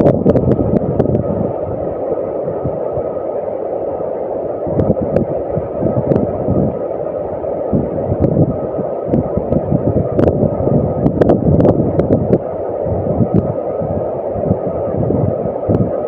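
Wind buffeting the microphone over a steady rushing roar, with scattered sharp clicks.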